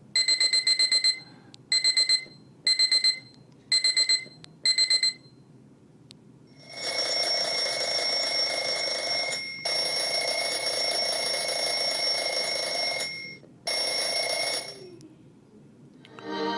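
REACHER clock radio playing its alarm sounds through its small speaker. First comes the buzzer: five short bursts of rapid high beeps. Then, about seven seconds in, a continuous bell-type alarm rings for about eight seconds, with two brief breaks.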